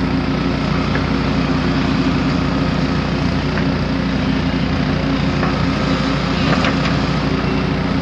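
Excavator's diesel engine running steadily under work, with a few faint knocks over it.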